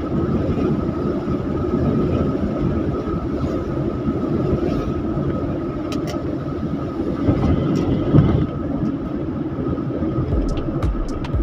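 Steady rumble of a vehicle driving along a road, with a faint steady high whine and a few light clicks.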